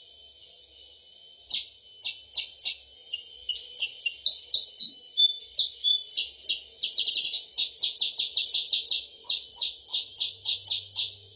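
Lure recording of kutilang sutra (percang) calls: sharp high chirps, scattered at first, with a few slurred whistles about four to six seconds in, then a fast run of about four chirps a second from about seven seconds in.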